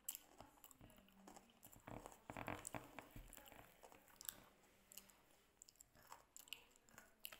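Faint chewing of a hard snack, with small crunches and mouth clicks, busiest about two seconds in.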